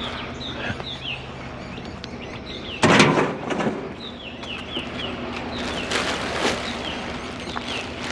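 A bird calling over and over with short, high chirps. A loud clatter comes about three seconds in, with a few lighter knocks later.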